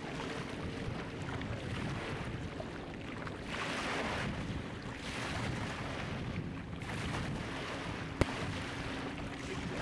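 Small lake waves breaking and washing onto a gravel shore, with wind on the microphone and the low steady hum of a distant boat motor. A single sharp click about eight seconds in.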